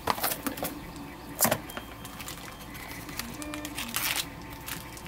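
Cardboard box and shrink-wrapped circuit-board panels handled by hand: plastic wrap crinkling and a few light knocks, the sharpest about a second and a half in.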